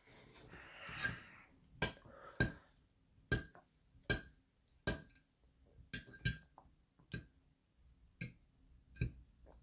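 Metal fork clinking and tapping against a ceramic plate while cutting scrambled eggs: about ten sharp clinks, under a second apart, each with a brief ring from the plate.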